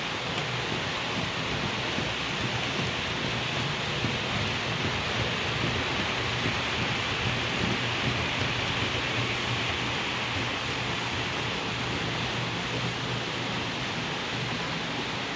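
Model SBB Re 6/6 (Re 620) electric locomotive and its freight wagons rolling past on model railway track: a steady rushing rattle of wheels on rail that swells in the middle and eases near the end.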